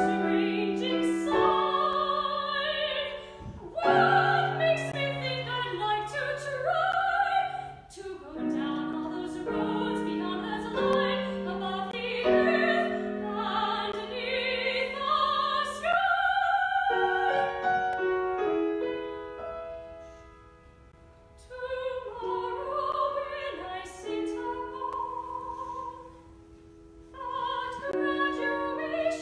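Female classical voice singing an operatic aria with grand piano accompaniment, held notes sung with vibrato. The music drops quieter for a moment twice in the second half.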